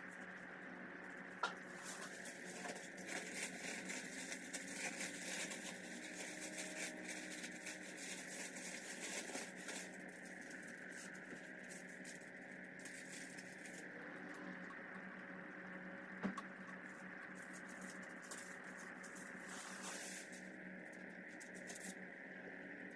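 Masking paper and tape being peeled off freshly painted bodywork and crumpled: faint rustling and crinkling, busiest in the first half and again near the end, with a couple of sharp clicks, over a steady background hum.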